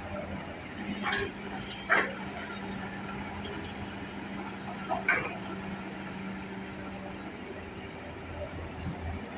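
Excavator's diesel engine running steadily, with three short, sharp sounds over it about one, two and five seconds in.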